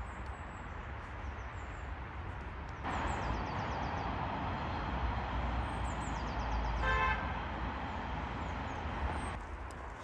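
Outdoor ambience of a steady rushing noise, louder for most of the stretch, with small birds' high trilling chirps. About seven seconds in there is one short, horn-like toot.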